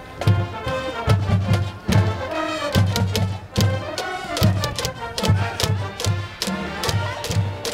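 Supporters' cheering music from the stands at a football match: a drum keeping a steady beat, about three hits a second, under a melody played or sung over it.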